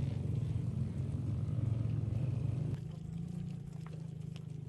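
Motor vehicle engines running with a steady low rumble; about two-thirds of the way in the sound cuts abruptly to a quieter engine hum with scattered clicks.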